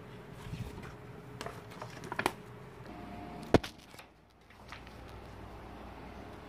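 Handling of paper and glossy poster sheets: light rustles and small taps, with one sharp click about three and a half seconds in.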